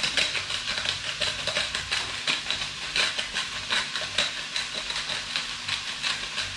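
Hand-twisted salt grinder grinding Himalayan pink salt, a fast run of dry clicks and crunches, over the steady sizzle of pork belly frying in a pan.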